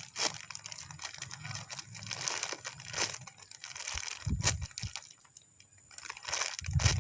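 Crinkly packaging rustling and crackling in irregular bursts as a squishy toy is handled.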